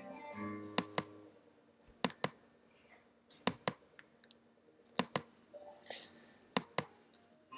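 Sharp clicks, coming in pairs about a fifth of a second apart, five pairs in a row at roughly one-and-a-half-second intervals, made while drawing strokes in a digital art program.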